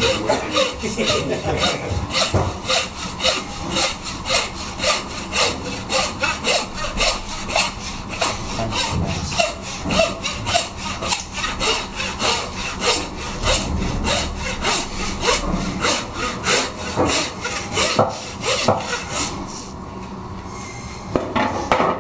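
Hand meat saw cutting lengthwise through a lamb's backbone in fast, even back-and-forth strokes. The strokes stop near the end.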